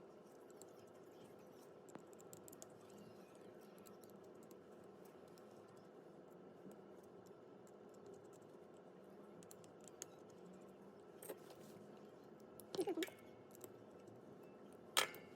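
Faint steady room hum with scattered light clicks and taps, and a few sharper clicks in the last few seconds.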